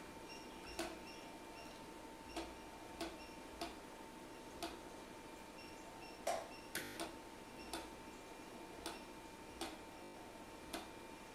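Computer keyboard keystrokes: about a dozen single presses at uneven intervals as the Enter key accepts default answers one prompt after another, over a faint steady electrical hum.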